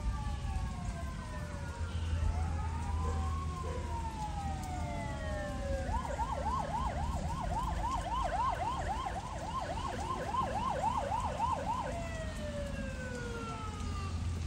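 Fire department sirens: a slow wail falling in pitch, switching about six seconds in to a fast yelp of about three cycles a second, then back to the falling wail about six seconds later.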